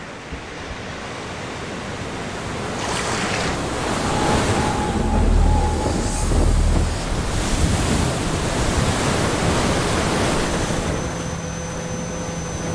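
Ocean surf surging in and breaking, building to its loudest about five to seven seconds in, then settling into a steady wash.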